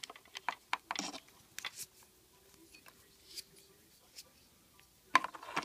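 Scattered light clicks and taps of hands handling a plastic RC car chassis and its electric motor, thinning out to a quieter stretch in the middle before a few more clicks near the end.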